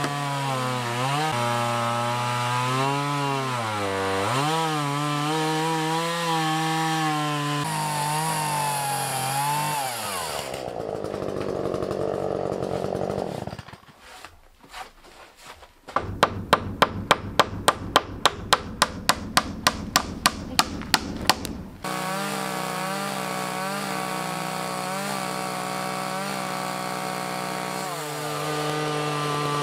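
Gas chainsaws cutting wood: one in an Alaskan chainsaw mill ripping a log into boards, its engine note sagging and rising under load, then a handheld saw trimming board edges. About halfway the saw sound drops away briefly, and a quick, regular run of knocks follows for about five seconds before the engine runs steadily again.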